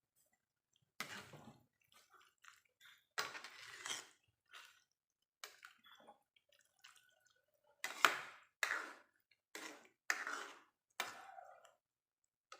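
Cookware being worked during cooking: a string of short, irregular scrapes and clinks of a utensil against a pan, with brief silences between them.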